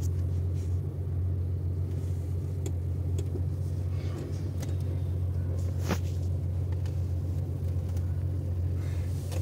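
Car on the move: a steady low rumble of engine and road noise, with one sharp click about six seconds in.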